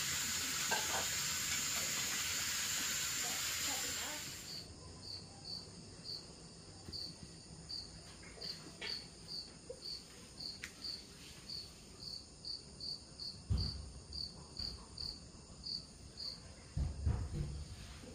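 Steam hissing from a pot of tamales cooking over a charcoal fire, which cuts off about four seconds in. Then a cricket chirps, short high chirps about twice a second, with a couple of brief low thumps near the end.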